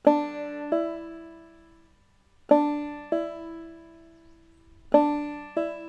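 Five-string banjo played clawhammer style, three times striking the open first string and then hammering on to the second fret, so each struck note steps up a whole tone without a second pluck. Each pair rings and fades before the next.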